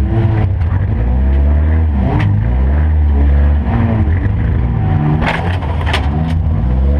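Demolition derby car's engine running and revving up and down, heard from inside the stripped cabin. A sharp knock comes about two seconds in and a quick cluster of knocks between five and six seconds.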